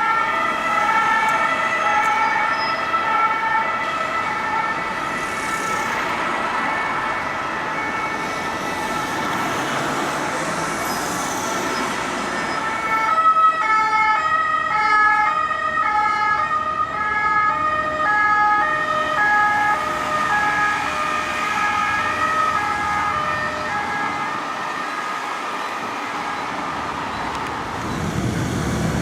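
French ambulance siren sounding continuously, its tones switching back and forth between fixed pitches, over road traffic. Just before the end the siren gives way to the low sound of a vehicle engine.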